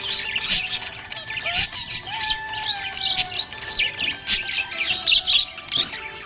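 Budgerigars chirping and warbling: a dense stream of quick, overlapping chirps with a few longer whistled glides, without a break.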